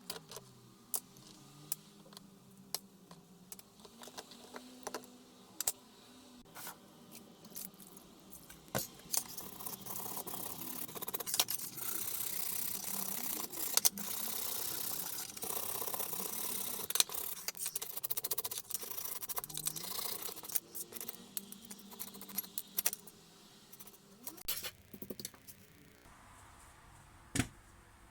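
Metal parts of an old rusty wrench clinking and knocking as they are handled during rust removal, with a longer stretch of steady scrubbing in the middle.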